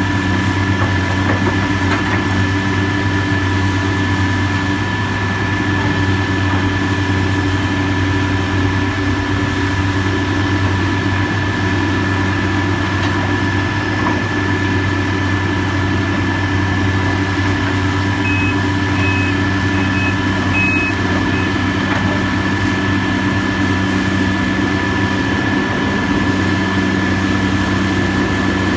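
Diesel engine of heavy demolition machinery running steadily at a low, even pitch, with a short run of high beeps about two-thirds of the way through.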